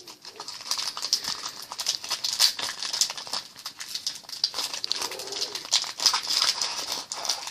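Foil wrapper of a trading card pack crinkling and crackling continuously as it is worked open by hand, a pack that is hard to open.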